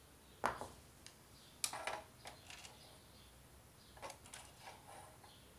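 Scattered sharp clicks and taps of screwdrivers being handled and worked against a projector's plastic and metal chassis during reassembly. The loudest click comes about half a second in, a quick cluster near two seconds, and a few lighter ones around four to five seconds.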